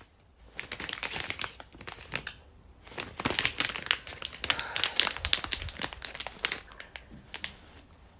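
Plastic wrapper of a latiao (spicy gluten strip snack) crinkling as it is handled and opened, in quick crackles that are loudest in the middle.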